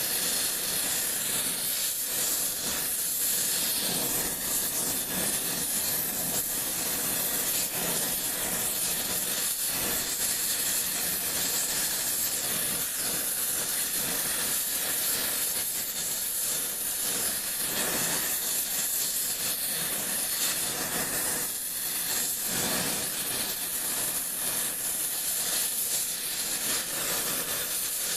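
Oxy-acetylene torch with a rosebud heating tip burning with a steady hiss.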